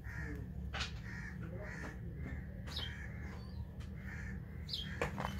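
Crows cawing in a series of short calls, with a few brief higher bird chirps, over a steady low rumble.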